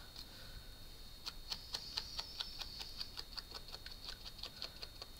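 Light, quick taps of a finger sponge dauber dabbing ink onto the edge of a paper gift tag, about four taps a second, starting about a second in. A faint steady high whine sits underneath.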